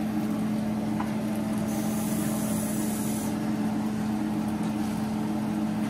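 A steady low mechanical hum, with a brief high hiss about two seconds in that lasts a second and a half.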